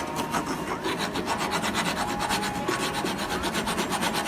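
Hand file being stroked rapidly back and forth across the steel edge of a lawnmower blade, sharpening its cutting bevel in a fast, even rhythm of rasping strokes.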